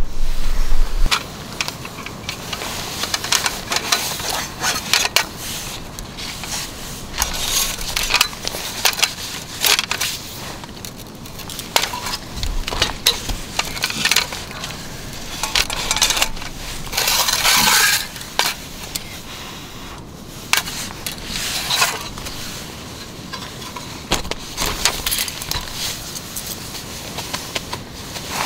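A metal spoon clinking and scraping against titanium camp pots and a pan during eating, in scattered sharp clicks and short scrapes, with a longer scrape about two-thirds of the way in. It opens with about a second of loud low rumble.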